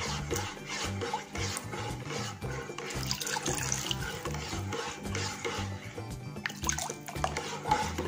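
A utensil stirring milk in a pot, the liquid swishing and lapping, as rennet is mixed in to set the curd. Background music with a steady beat plays underneath.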